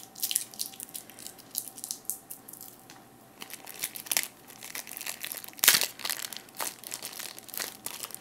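Plastic packaging and tape crinkling and crackling as a taped-down display stand is worked loose by hand. Irregular crackles throughout, loudest about six seconds in.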